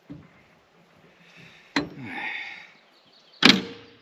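Clunks and knocks of chainsaw parts being handled as the saw is opened up to clear out debris: a sharp clunk about two seconds in followed by a short scraping, and a louder knock near the end.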